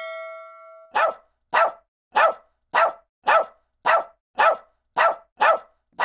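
Dog bark sound effect: nine short barks in a steady run, about two a second, each one alike. In the first second a ringing ding fades out before the barking starts.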